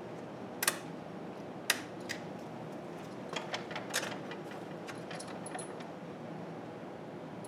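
Sharp metallic clicks and clinks of a steel bolt and washer knocking against a steel breaker-box enclosure as the bolt is fitted: two loud clicks about one and two seconds in, then a quick run of lighter clinks around three to four seconds in.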